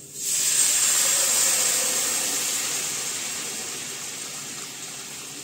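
Boiled vegetable stock poured into a hot, oiled pan of fried shredded chicken, hissing loudly as it hits the hot pan and fading gradually as the liquid cools it.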